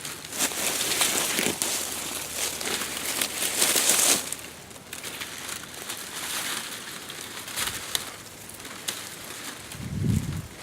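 Dry plant material crunching and rustling, loudest for the first four seconds, then quieter scattered crackles.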